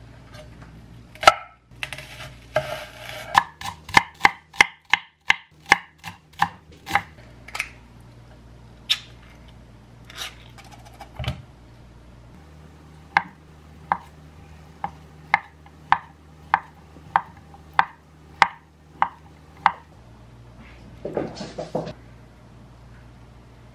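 Kitchen knife chopping on a wooden cutting board in quick, even strokes, first through a green onion and then, after a pause, dicing a block of Spam at about two to three strokes a second. A short rustle and clatter comes near the end.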